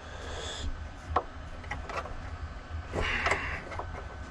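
A small wrench working the top fitting of a Tein coilover to break it loose: scattered light clicks and taps of metal on metal, with a brief scrape about three seconds in.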